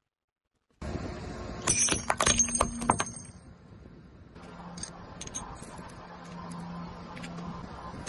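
Car tyre crushing white ceramic soup spoons on asphalt: a burst of sharp cracks and ringing clinks of breaking ceramic about two to three seconds in, then scattered small clicks of shards, over a steady car hum.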